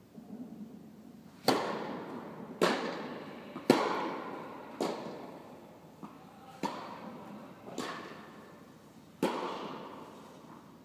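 Tennis ball struck by rackets and bouncing on the court during a rally: seven sharp pops about a second apart, the first the loudest. Each rings on with a long echo in the large indoor tennis hall.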